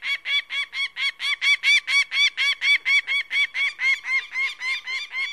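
A hawk calling in a rapid, steady series of short, arched notes, about four a second.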